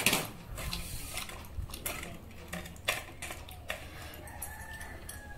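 Scattered light clicks and taps of fingers and bangles against small steel plates and a steel bowl while eating rice by hand, the sharpest right at the start. A chicken calls faintly in the background.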